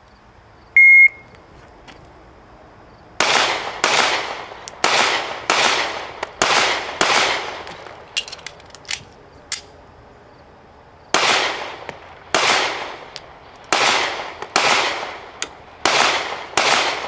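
A single electronic beep, a shot timer's start signal, then a Smith & Wesson M&P Shield 9mm pistol firing six shots in quick pairs, a few clicks of a magazine reload, and six more shots in pairs. The beep is the loudest sound.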